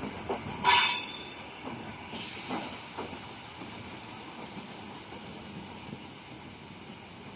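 ED4M electric multiple unit arriving at a station: wheels knocking over rail joints, with one loud, sharp burst about a second in, then a faint, thin, high wheel squeal.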